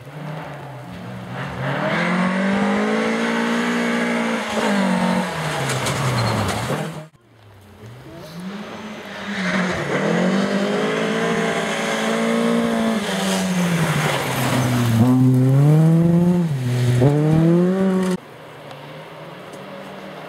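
Rally car engine revving hard and falling away through gear changes, with several quick rising revs in a row. The sound cuts out sharply about seven seconds in, builds again, and stops abruptly near the end.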